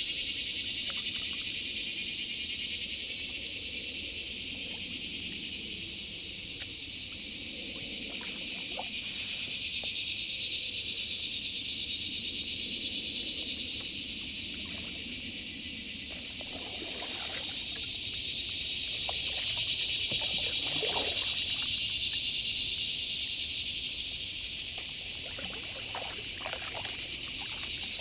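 Steady, shrill chorus of insects that swells and fades in slow waves, with water trickling and dripping faintly underneath.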